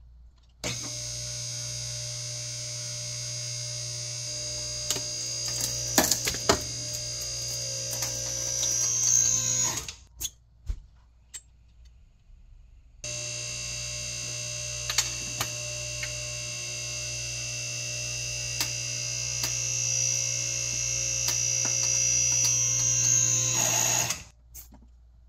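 Hydraulic press's pump motor running with a steady whine and hum, broken by sharp cracks and snaps as the wooden block splinters under the ram about five to six seconds in. The motor stops near ten seconds, a few clicks follow, and it starts again about thirteen seconds in, growing slightly louder until it cuts off shortly before the end.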